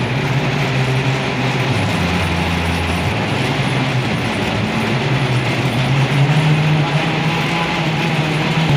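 A vehicle's engine running steadily, a low hum over a rumbling, rushing noise, dipping lower in pitch for about a second around two seconds in.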